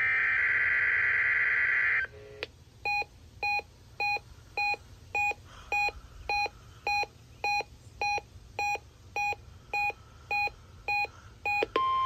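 Reecom NOAA weather alert radio receiving a Required Weekly Test. It opens with a two-second screech of SAME digital header tones, then the radio's alert beeper sounds about sixteen short beeps, a little under two a second. Just before the end another burst of data tones starts.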